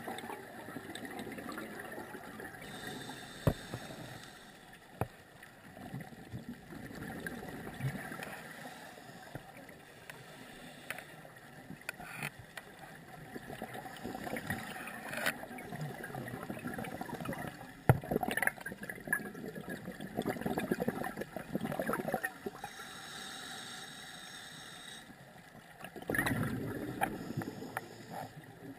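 Scuba diver breathing through a regulator underwater: hissing inhalations alternating with bubbling, gurgling exhalations over a few slow breath cycles, with a few sharp clicks.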